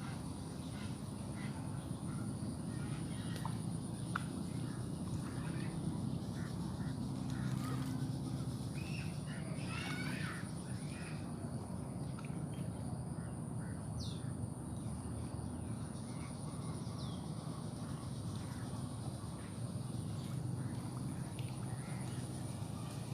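Outdoor ambience: a steady low hum and a constant high-pitched tone, with scattered short bird-like chirps that cluster about ten seconds in.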